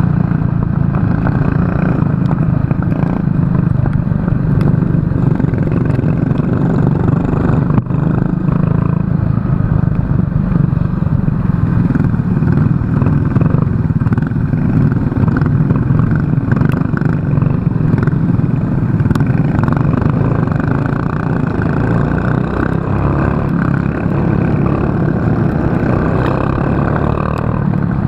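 Racing kart engine running hard under an onboard camera, a steady drone with rattling from the kart.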